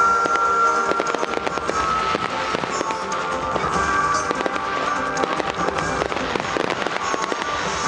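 Fireworks going off in rapid succession, a dense run of crackles and bangs, over music with long held notes.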